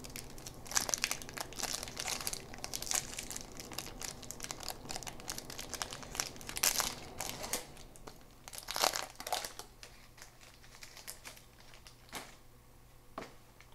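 A trading-card pack's wrapper being torn open and crinkled: a dense run of sharp crackles for about nine seconds, then only a few scattered clicks.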